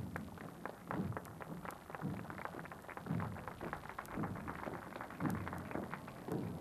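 A squad of soldiers marching in step on a paved street: boot strikes as many sharp taps, with a heavier thud about once a second.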